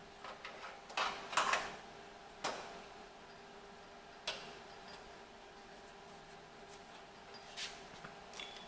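Occasional light metallic clicks and knocks of a steel repair panel and clamps being handled and adjusted, with a short rattle about a second and a half in being the loudest, over a faint steady hum.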